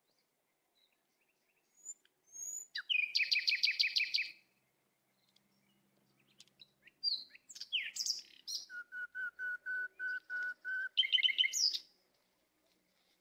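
A small bird singing in two phrases. The first is a fast trill about three seconds in. The second starts about seven seconds in with varied chirps, runs into a series of about eight even whistled notes, and ends in another fast trill near the end.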